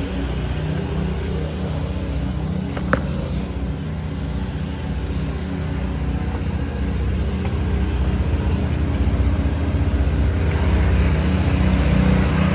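An engine running steadily at a constant speed, with one sharp click about three seconds in.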